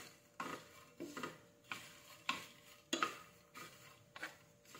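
Two wooden spatulas stirring and tossing crisp dried baby shrimp in a hot nonstick frying pan, with short dry scraping strokes about twice a second. The shrimp are being dry-roasted with no oil, kept moving so they do not burn.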